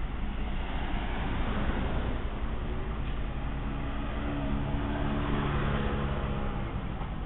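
Small motor scooter riding past, its engine note heard for a few seconds in the middle, over a steady low engine rumble.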